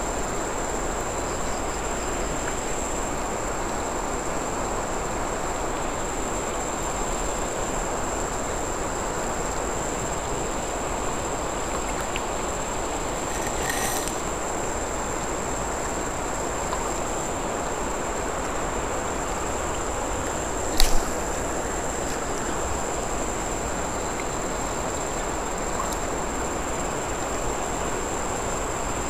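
Steady rush of a wide river flowing past the bank, an even hiss with a thin steady high tone running through it. One sharp knock about two-thirds of the way through.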